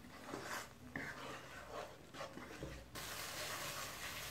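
A spatula scraping and stirring thick masala paste in a nonstick kadhai, in soft repeated strokes. About three seconds in, this gives way to a faint steady sizzle as the paste fries on low flame to cook out its raw taste.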